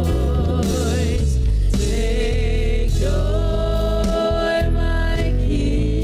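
Gospel worship singing: a small group of female singers on microphones holding long, wavering notes over steady instrumental backing.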